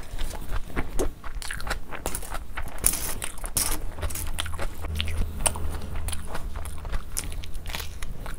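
Close-miked chewing and biting of a mouthful of rice and mutton curry, with crisp crunches from a raw onion and, near the end, a bite of fresh red chilli. Many irregular wet smacks and crunches follow one another.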